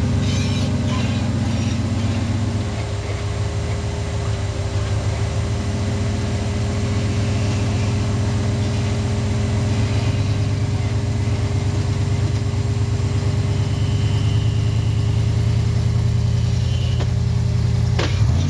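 V8 engine of a tube-chassis rock crawler buggy running at low, shifting revs as it crawls up a boulder ledge, with a single sharp crack near the end.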